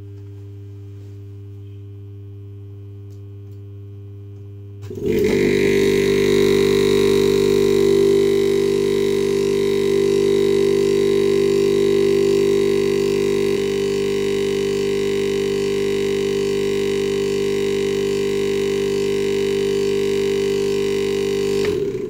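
Refrigerator's single-piston reciprocating compressor, its top shell cut open, powered directly from the mains: a steady hum for about five seconds, then the motor starts and runs loud and steady with the fast 'tor tor tor' of the piston compressing and pumping out air. It stops just before the end.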